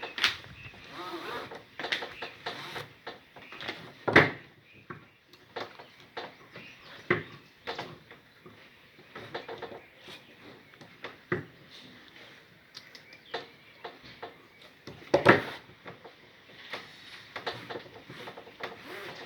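Metal ratchet strap being worked by hand to free webbing wound wrongly onto its drum: irregular clicks and clacks of the ratchet, with the webbing being pulled through. Two louder knocks, about four seconds in and near fifteen seconds.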